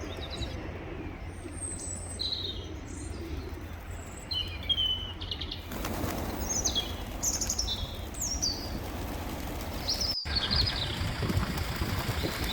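Birds chirping in short, high, falling notes, with wings flapping, over a low steady rumble.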